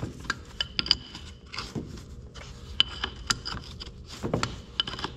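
Wrench and steel parts clinking and tapping against each other in irregular sharp knocks, a few of them ringing briefly, with some light scraping.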